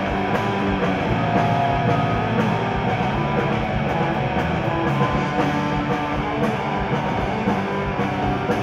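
Punk rock band playing live: electric guitars, bass guitar and drum kit in an instrumental passage with no singing.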